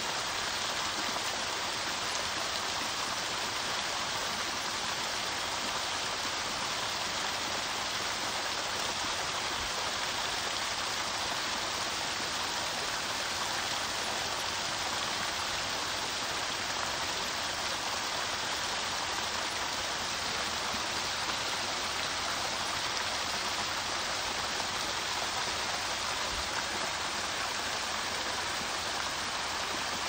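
Small waterfall pouring down a rock face into a shallow stream: a steady, even rush of falling and splashing water.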